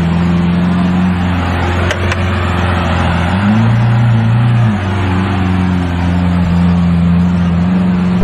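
Lamborghini V12 engine idling at low speed, rising briefly in revs about three and a half seconds in and then settling back to idle.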